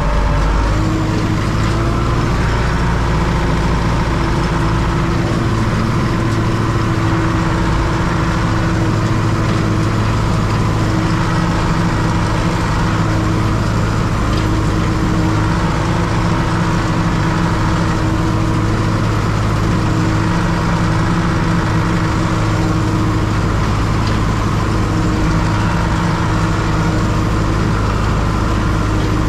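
Heavy farm machinery's diesel engine running steadily at a constant pitch.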